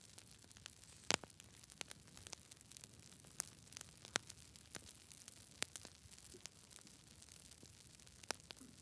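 Campfire crackling: irregular sharp pops and snaps of burning wood over a faint steady hiss, the loudest pop about a second in.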